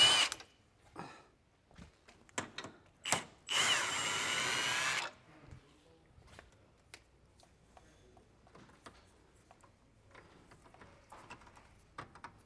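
Milwaukee M18 cordless impact wrench spinning out sway bar bracket bolts: the end of one run right at the start, then a second run of about a second and a half, starting about three and a half seconds in. After that only light metal clicks and knocks.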